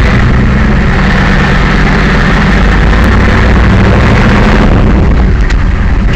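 Monster truck engine running loud and steady while the truck is under way, heard from inside the cab and so loud that the recording is distorted.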